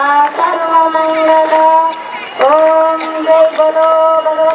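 Music: a high voice singing long held notes that glide from one pitch to the next, with a short break about two seconds in.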